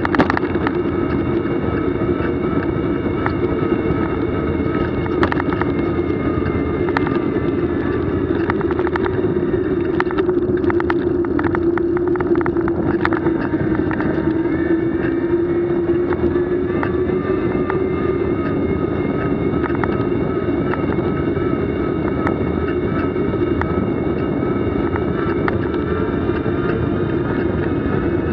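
Steady running noise of a moving vehicle heard from on board, with a hum whose pitch drifts slightly down and back up, and scattered clicks and rattles around the middle.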